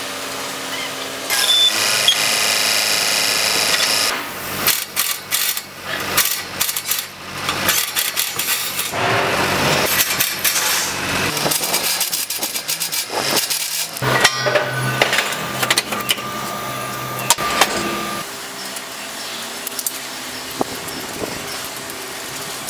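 A cordless drill driving the screws and nuts that fasten the block machine's mould, running in short whirring spells, with clicks and knocks of metal tools and parts between.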